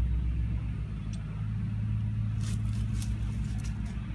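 Steady low drone of an idling engine, with a few light metallic clicks of bolts being started back into their holes.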